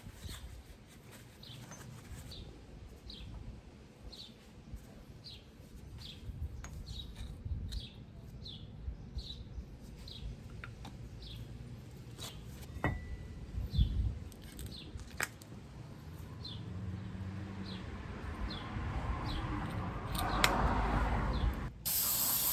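A small bird chirping over and over, short high falling notes about twice a second, with a few sharp metallic clicks and knocks of tools in between. A loud steady hiss starts suddenly near the end.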